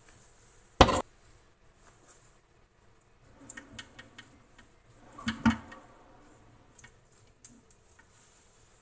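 Steel gearbox parts of a Nissan Primera P11 manual transmission clanking: one loud metal knock about a second in, then lighter clinks and a double clank around the middle as the differential is worked loose and lifted out of the gearbox case.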